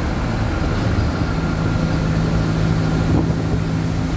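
Mercedes-Benz OF-1722M city bus's front-mounted diesel engine running at a steady pitch while the bus drives, heard from inside the bus along with road rumble.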